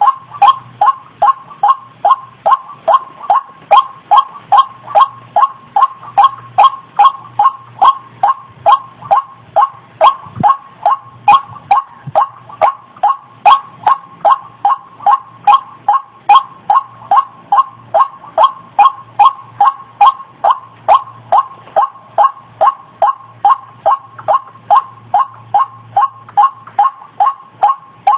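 White-breasted waterhen (ruak-ruak) call played as a bird lure: a short, slightly falling 'kruak' note repeated evenly about twice a second.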